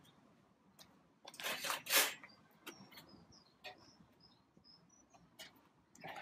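A short rustling scrape about a second and a half in, from firelighter cubes being handled at the barbecue. After it come faint, high, short bird chirps and a few light clicks.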